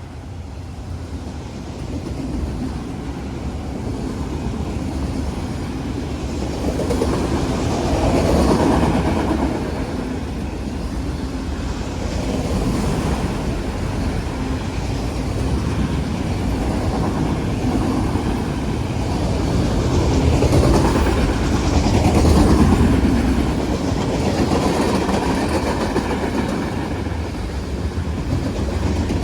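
Train cars rolling past, with a steady rumble and the clickety-clack of wheels over the rails that swells and eases as the cars go by.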